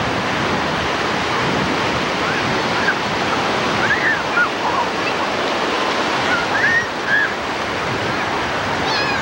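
Ocean surf breaking and washing through the shallows as a steady rush. A few short, high calls from distant voices come through in the middle.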